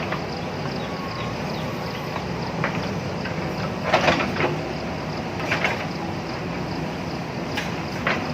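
JCB backhoe loader's diesel engine running steadily while the machine digs, with short bursts of scraping and clanking from the bucket on rock and soil about four seconds in, again about a second and a half later, and near the end.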